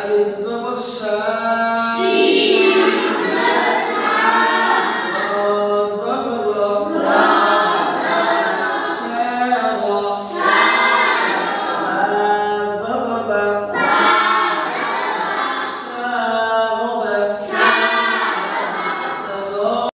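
A group of boys chanting Quran recitation aloud in unison, melodic phrases of a few seconds each with short breaks for breath.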